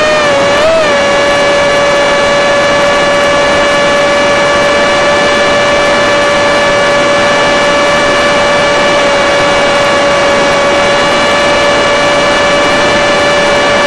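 Electric motor and propeller of an FPV Skyfun RC plane running at steady throttle with a constant whine, with two short rises in pitch from quick throttle changes within the first second.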